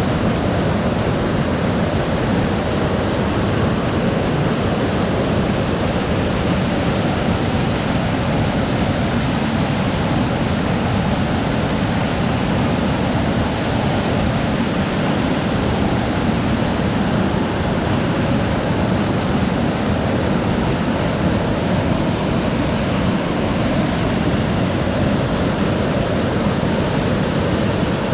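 Rain-swollen mountain waterfall rushing steadily and loudly.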